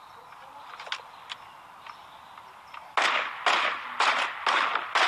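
Rifle shots fired in quick succession, starting about three seconds in: five sharp cracks about half a second apart, each with a short echo. Before them there are only a few faint clicks.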